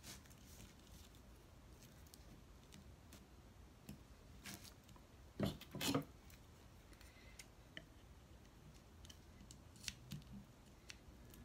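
Rhinestone ribbon being handled and pressed around an acrylic tube: faint scattered clicks and rustles, with two louder sharp clicks close together about halfway through.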